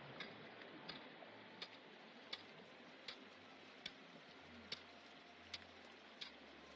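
Footsteps on a hard snowfield, a short crisp crunch about every three-quarters of a second, over a faint steady hiss.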